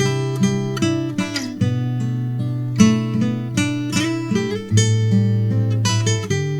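Morris W30 steel-string acoustic guitar played fingerstyle: held bass notes ring under a run of plucked melody notes, with a short sliding note about a second in.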